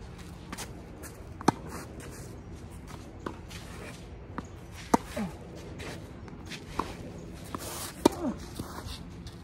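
Tennis rally: a ball struck by rackets with sharp pops about every three seconds, the loudest, a forehand by the near player, about eight seconds in. Softer knocks of the ball bouncing and of footsteps fall between the hits.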